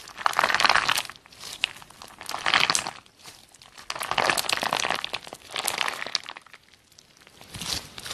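Clear and white slime studded with blue glitter beads squeezed and pulled by hand, giving crinkly, crackling squishes in about four bursts with short pauses between them, and a quieter spell about two-thirds of the way through.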